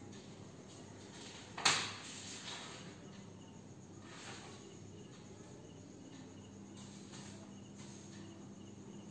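Faint cricket chirps repeating over a low steady hum, with one sharp knock a little under two seconds in and a couple of softer knocks after it.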